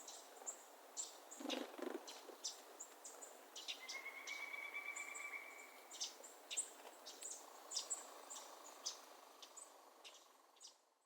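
Several small birds chirping: a steady run of short, high chirps, with one longer held note about four seconds in and a fainter long note later. The sound fades out at the end.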